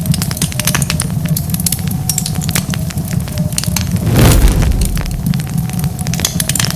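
Wood fire crackling, with dense sharp pops and snaps over a steady low rumble of flame. There is a louder rushing swell of the fire about four seconds in.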